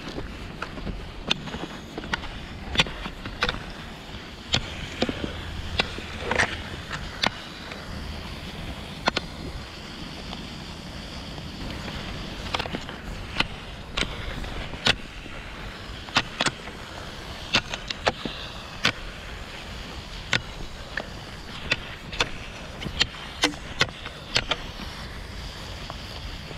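Classic cross-country skis (Fischer Twin Skin) sliding and scraping over thin, trampled snow on a paved path. Sharp clicks from the poles and skis come at each stride, about one or two a second and unevenly spaced.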